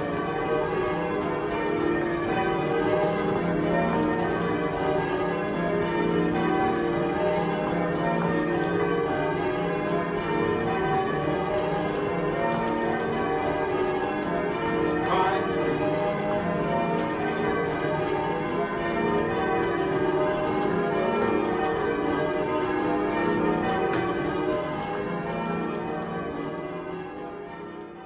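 Church bells ringing in a continuous peal of many overlapping tones, fading out near the end.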